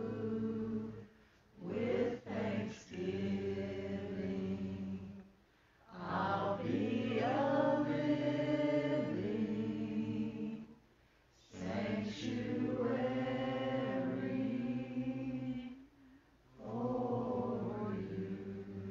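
Congregation singing a slow worship song a cappella, in long held phrases with brief pauses for breath between them.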